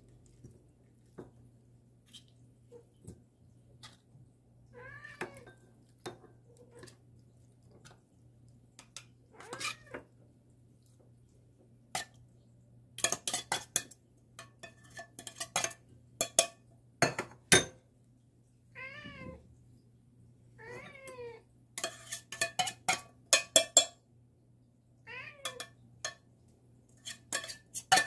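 Cats meowing again and again, begging for food. Bursts of sharp clinks and clatters come in the second half.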